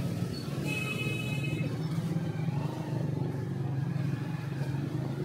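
Motorcycle engine running steadily while being ridden, heard up close from the pillion seat. A brief high-pitched tone sounds for about a second, starting just under a second in.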